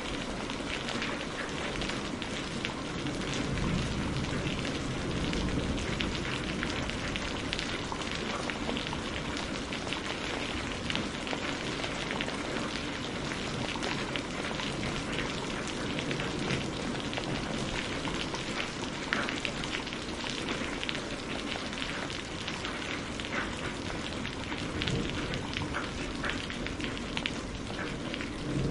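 Steady rain falling, with many individual drop hits heard through the even hiss.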